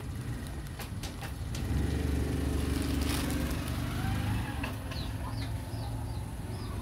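A motor vehicle's engine hum swells about two seconds in and fades again after a couple of seconds, as it passes. Near the end comes a run of short high bird chirps, about half a dozen.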